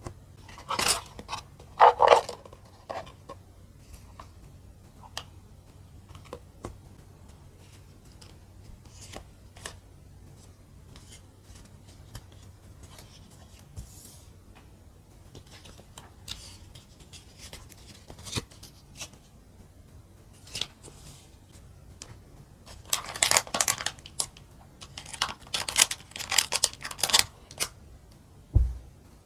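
Mini plastic building bricks and their packaging handled by hand: scattered light clicks, with two clusters of louder noisy handling sounds, one about two seconds in and a longer one from about 23 to 27 seconds. A single low thump comes near the end.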